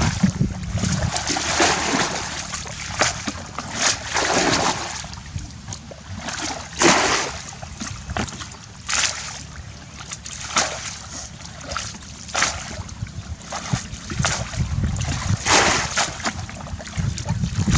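Water splashing and sloshing in irregular strokes, one every second or so, over a steady low rumble.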